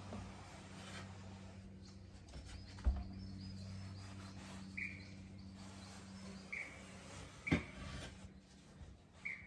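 A bird giving short single chirps, one every second or two from about halfway in, over a steady low hum. Two sharp knocks are heard, one about three seconds in and a louder one near the end.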